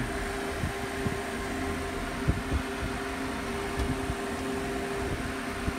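A steady mechanical hum with a few faint taps.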